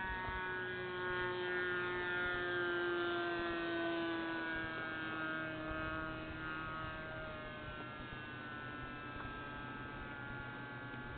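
Motor and propeller of a radio-controlled Seamaster seaplane in flight, a steady whine whose pitch slowly falls as it fades over the second half.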